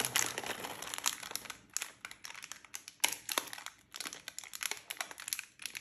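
Plastic Cadbury Gems candy packet crinkling as it is handled and pulled open by hand, in irregular sharp crackles, thickest at first with brief lulls about two and four seconds in.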